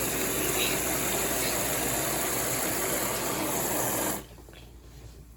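Kitchen sink tap running hard, a loud steady rush of water that is shut off abruptly about four seconds in, leaving only faint dripping.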